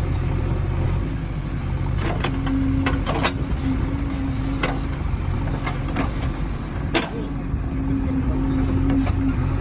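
Diesel engine of heavy farm or construction machinery running at a steady speed, with about eight sharp knocks or clanks scattered through the middle, the loudest about seven seconds in.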